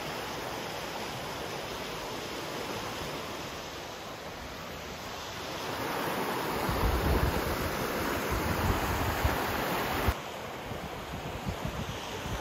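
Wind rushing over an outdoor microphone, buffeting it harder from about six to ten seconds in, then dropping off abruptly.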